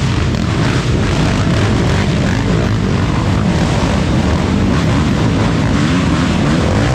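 Racing ATV (quad) engine running hard, a loud continuous drone whose pitch wavers up and down with the throttle.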